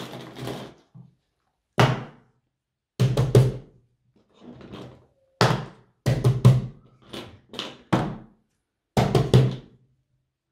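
Silicone pop-it fidget toys and a foam squishy being set down on a tabletop board: a series of irregular soft thumps and knocks, some coming in quick clusters.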